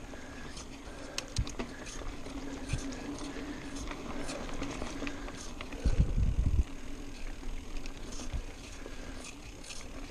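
Mountain bike riding fast down a dirt singletrack: tyres running over the dirt, with frequent clicks and rattles from the bike over the bumps. A louder low rumble comes about six seconds in.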